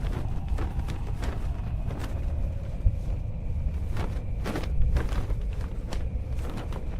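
Layered sound effects for an animated fight: an irregular run of sharp hits and impacts, a few a second, over a steady low rumble, with a louder hit about three seconds in and another near five.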